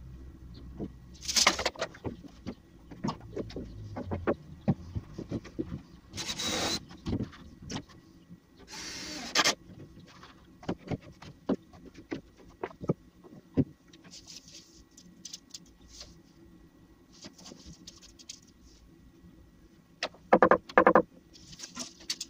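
Wood being handled: scattered knocks and clatters of plywood panels and a long wooden batten. There are a few short harsh bursts of noise, and a quick rattling run of clicks near the end.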